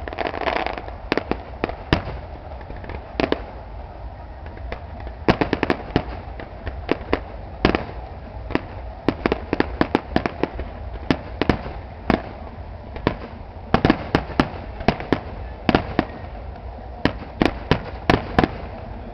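Fireworks display: aerial shells bursting in irregular runs of sharp bangs, with a lull about four seconds in and dense volleys through the second half.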